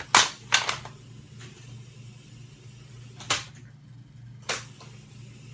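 Four sharp plastic clicks and knocks, spaced unevenly, as cassette tapes and their cases are handled, over a steady low electrical hum.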